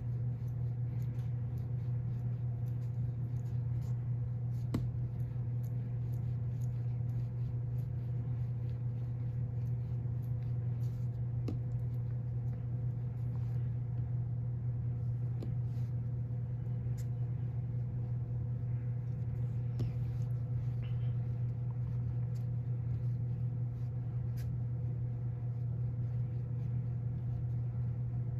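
Steady low hum of a room or small machine, with faint scattered ticks.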